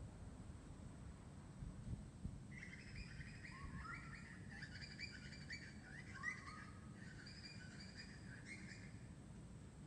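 Birds chirping, a run of short calls starting about two and a half seconds in and stopping shortly before the end, over a faint low background rumble.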